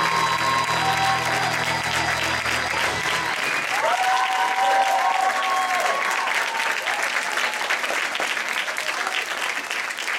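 Audience applauding over the closing bars of music. The music's bass drops out about three seconds in, and its last held notes end about six seconds in, leaving only the applause.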